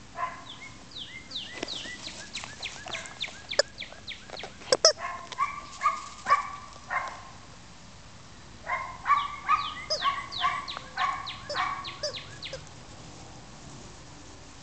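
Rubber chicken toys squeaking over and over as a tiny chihuahua bites and squeezes them: a rapid run of squawks several times a second, a pause of about two seconds, then a second run that stops a couple of seconds before the end.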